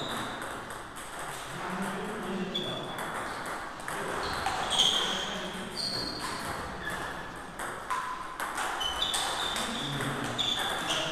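Table tennis balls clicking off rubber paddles and bouncing on the table in rallies, a quick irregular run of sharp high pings.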